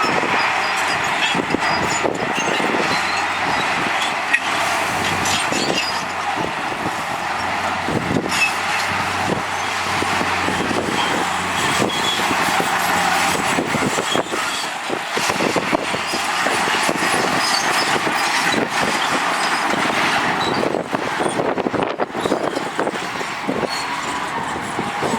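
Heavy earthmoving machinery at work: a diesel engine running steadily, with frequent rattles and clanks over it.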